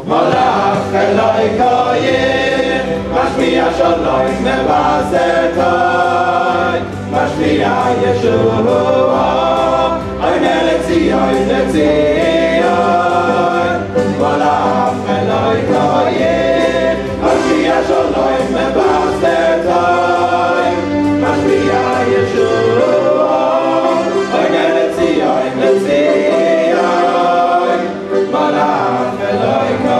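A choir singing a song, coming in abruptly at the start and carrying on without a break.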